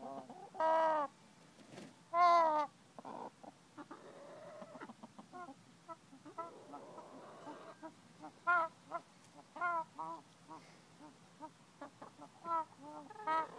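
Ameraucana hen wheezing: a string of short, pitched calls, the two loudest in the first few seconds and fainter ones about every second after, with a breathy hiss near the middle.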